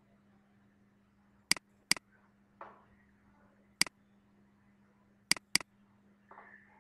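Computer mouse button clicks: five sharp single clicks, two of them coming in quick pairs like double-clicks opening folders, over a steady low electrical hum.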